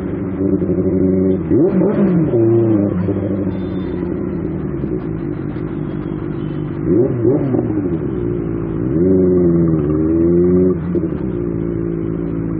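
Benelli TNT 600i's inline-four engine running through a loud aftermarket exhaust while riding, its revs rising and falling several times.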